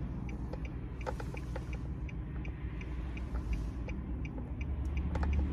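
Low steady rumble inside a car's cabin, with faint quick regular ticking and a few light clicks over it.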